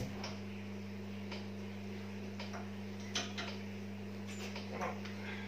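A steady low hum, with scattered faint clicks and knocks and one sharper knock about three seconds in.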